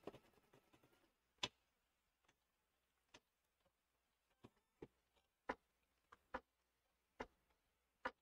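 Faint, scattered sharp clicks, about ten of them and irregularly spaced, from small scissors and stiff freestanding-lace pieces being handled during hand assembly. A fast, even ticking patter stops about a second in.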